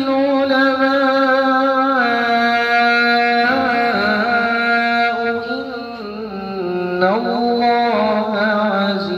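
Solo male Quran recitation (tilawa): one voice chanting in long held melodic notes with ornamented turns, sung into a microphone. The pitch steps down about two seconds in and again around six seconds.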